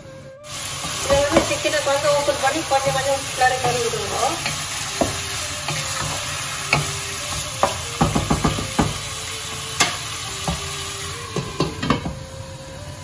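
Diced chicken and peppers sizzling in a saucepan while a wooden spatula stirs and scrapes them, with sharp knocks of the spatula against the pan. Near the end a glass lid is set on the pan.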